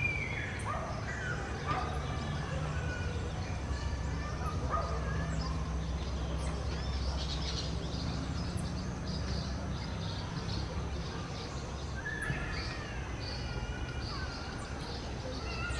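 Orange-chinned parakeet calls: short bending call notes near the start and again late on, with a run of high chattering notes, a couple a second, through the second half. A steady low rumble runs underneath.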